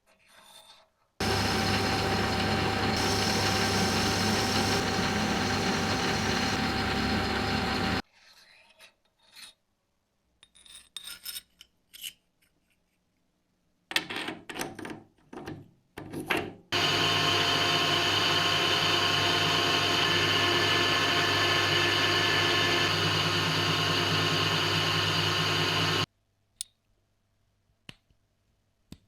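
A power tool runs steadily for about seven seconds, stops, and after a stretch of small clicks and handling taps runs again for about nine seconds before cutting off.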